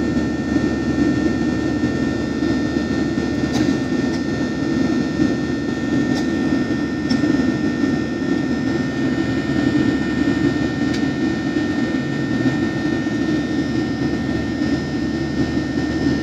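Steady roar of a Boeing 737's turbofan engines at climb power, heard inside the cabin beside the wing, with a steady high whine over the deep rumble. A few faint ticks sound through it.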